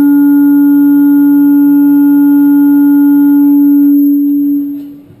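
PA system microphone feedback: a loud, steady howl at one pitch that holds, then fades out and stops about five seconds in.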